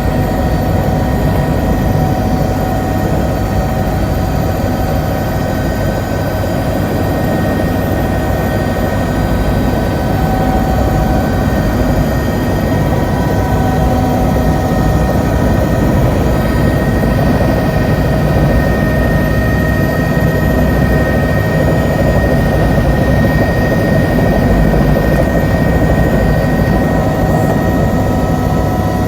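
Helicopter running steadily: a loud, dense low rumble with a steady high whine over it.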